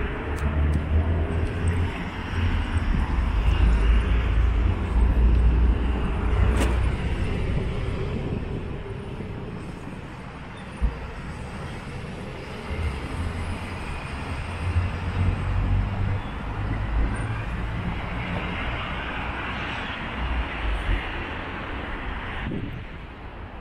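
Road traffic on a busy city avenue heard from a rooftop above: a steady wash of cars and buses with a low rumble that comes and goes, and a louder swell near the end.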